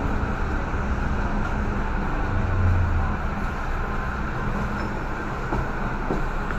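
Steady low rumble and hum of an underground metro station platform, with a louder low swell about two and a half seconds in.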